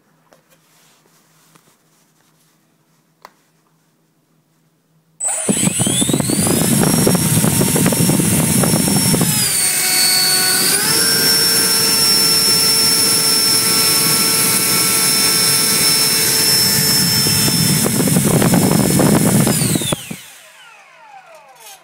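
A 70 mm twelve-blade electric ducted fan driven by a 2300 kV brushless motor starts about five seconds in and quickly spins up to a loud, steady high-pitched whine. It dips in pitch briefly and comes back up, then spools down near the end with a falling whine.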